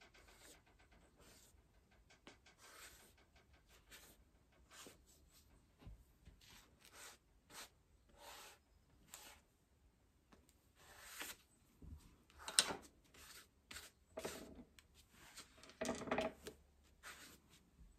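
Paintbrush rubbing and scrubbing across sketchbook paper in short circular strokes, an irregular run of soft brushing sounds, a few louder strokes in the second half.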